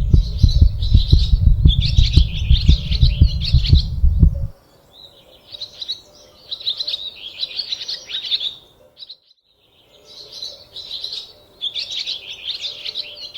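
Small birds chirping and twittering in repeated bursts of song. A loud low rumble sits under the first four seconds or so and then drops away, and the song breaks off briefly about two-thirds of the way through.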